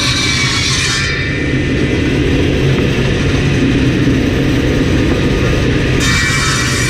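Table saw running: the blade finishes cutting through a walnut slab about a second in, then spins free with a steady motor hum for about five seconds, and bites into the slab again near the end.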